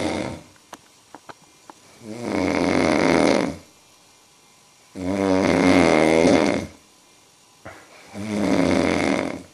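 A man snoring loudly in his sleep: three long snores about three seconds apart, each lasting a second or more, after the end of one more at the start, with a few faint clicks in the quiet between.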